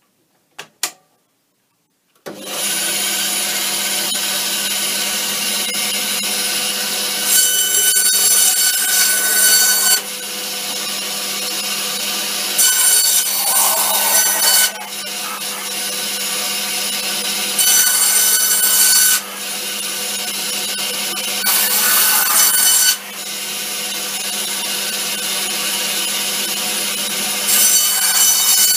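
Superkut 82 Professional bandsaw: two clicks of the start switch, then the motor and 2020 mm blade start about two seconds in and run with a steady hum. Five times the sound turns louder and harsher for one and a half to two and a half seconds as the blade cuts through a white block.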